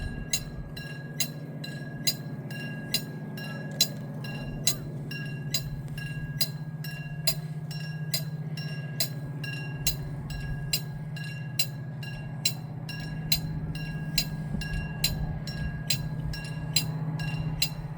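Korean railway level-crossing warning bell ringing in a fast, even rhythm of about two metallic strikes a second, over a steady low hum.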